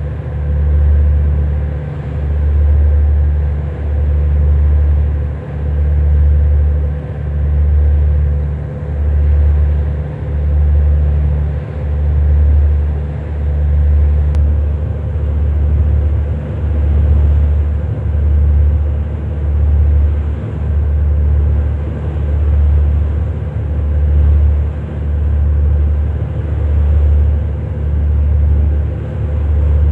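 Heavy engine rumbling low and steadily, throbbing in a regular swell about every second and a half, with a steady hum above it.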